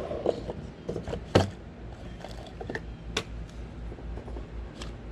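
Small items being handled in a jewelry box drawer: faint rattles and a few sharp clicks, over a low steady hum.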